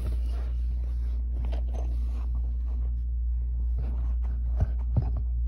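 Zipper on a hard-shell carrying case being pulled open, a scratchy rasp that fades partway through, then two sharp knocks from handling the case near the end, over a steady low hum.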